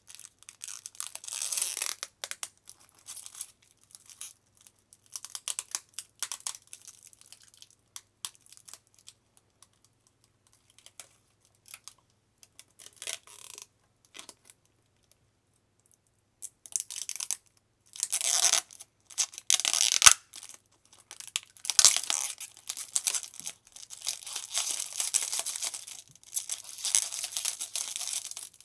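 Protective plastic film being peeled off a new CNC-cut guitar pickguard, crackling and tearing in irregular bursts. The bursts are sparse in the first half, then longer and louder past the middle, with a couple of sharp snaps.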